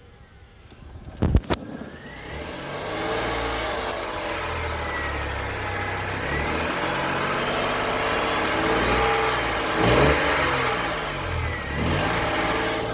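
Opel Corsa 1.0 petrol engine: two sharp knocks about a second in, then the engine starts running and is revved up and down several times, its pitch rising and falling.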